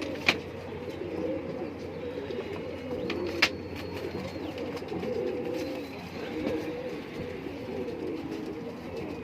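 Several domestic pigeons cooing continuously, their calls overlapping. Two sharp clicks stand out, one about a third of a second in and one about three and a half seconds in.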